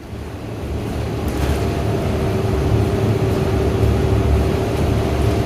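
A large vehicle's engine running, a low rumble with a steady hum over it, growing louder over the first two seconds and then holding steady.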